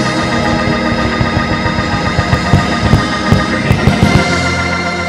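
Church organ holding sustained chords as praise music, with a quick run of short low thumps underneath that eases off about four seconds in.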